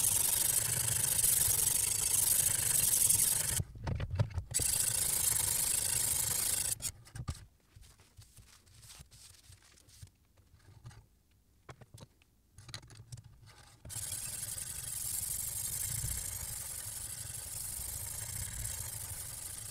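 Diamond sharpening stone scraping along the edge of a chef's knife on a guided-rod sharpener. It stops for several seconds midway, with a few light clicks, then starts scraping again.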